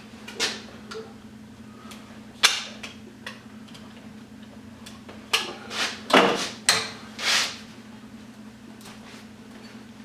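Pliers and cutters clicking and snapping against a warmed plastic plug as it is twisted and its brass prongs worked loose, half a dozen sharp clicks spread unevenly. A low steady hum runs underneath.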